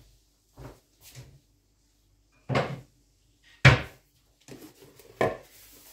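Kitchen handling noises: a series of separate knocks and thuds as things are moved and set down. There are two faint ones at first, then louder ones about two and a half and three and a half seconds in, the second of these the loudest and sharpest, and another near the end.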